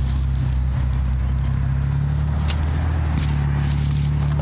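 Car engine idling with a steady low hum, with a few faint clicks over it.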